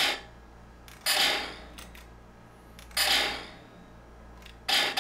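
Blaster-shot sound effects played by the DC-15 blaster prop's sound board and amplifier through its speaker and transducer. A rapid-fire burst ends right at the start. Two single shots follow about two seconds apart, each falling in pitch, and then another rapid burst of about three shots a second begins near the end.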